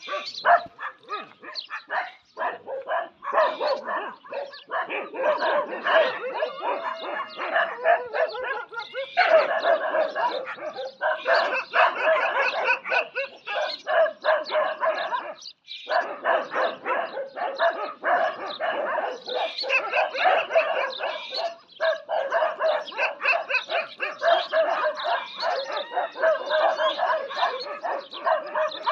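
A pack of desi village dogs barking and yelping in a fight, a dense run of overlapping rapid barks and yelps with barely a pause.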